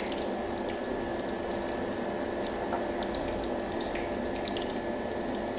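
Steady whir and hum of an electric cooktop running under a pot of simmering soup, with a few faint ticks as a wooden spoon stirs the stainless-steel pot.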